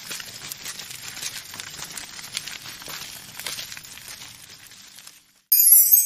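Track repair machine working along the rails, with a steady crackling rattle of ballast stones as it sweeps and throws up the gravel bed. It cuts out about five seconds in, and a short, loud transition sound effect follows near the end.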